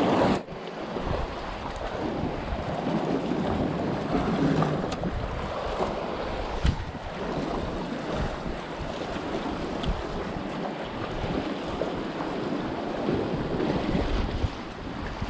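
Wind buffeting the microphone over sea water, with a steady rumbling wash and a few faint clicks.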